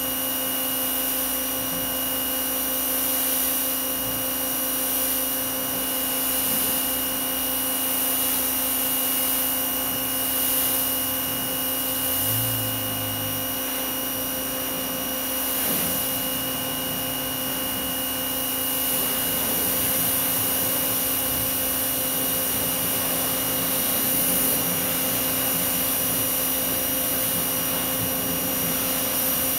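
CAT-branded Active 1800 psi, 2.0 gpm electric pressure washer running steadily, its piston pump humming under the hiss of a wide 40-degree spray rinsing soap foam off a truck's bodywork.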